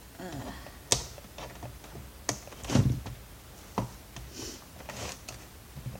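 A few sharp clicks and knocks of hard plastic parts and a tool being handled as a computer monitor is worked apart, with the loudest knock, a heavier thump, about halfway through.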